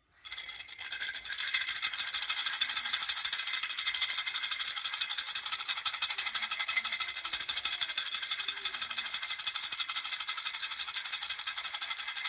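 Baby rattle shaken rapidly and continuously in an even rhythm, starting up and building over the first second or so.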